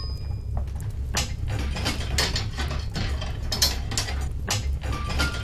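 Wood fire crackling: irregular sharp pops and snaps, several a second, over a steady low hum.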